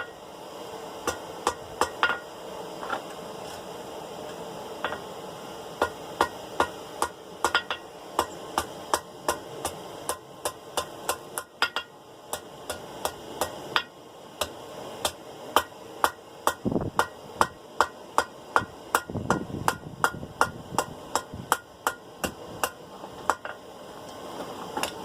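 Hand hammer tapping the steel ball end of a forged dinner-bell clacker on the edge of an anvil, dressing the corner with light blows. The strikes come in a steady run of about two a second, with a few short pauses.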